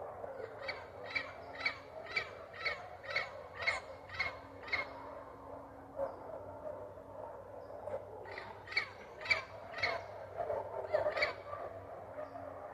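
Parrot calling: a run of short repeated calls, about two a second, then a pause of a few seconds, then a second run.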